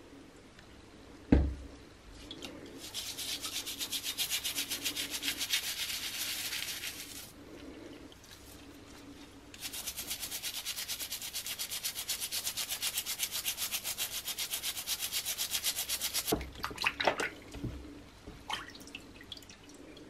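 A stiff-bristled scrubbing brush scrubbing a small metal disc coated with cream cleanser, in quick back-and-forth strokes, in two spells with a short pause between. A sharp thump about a second in, and a few light knocks and clicks near the end.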